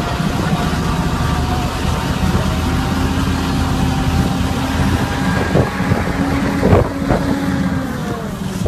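A truck-pull vehicle's engine running loudly and steadily at high power, its pitch holding level, with a dense noisy wash over it and a few brief sharper sounds in the second half.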